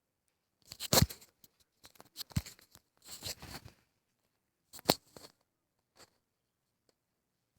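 Bedclothes rustling and shifting in several short bursts, as a person settles onto a bed where a dog is lying.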